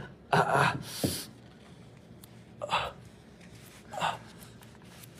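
A person gasping and drawing sharp breaths, four short ones, the loudest with a little voice in it about half a second in.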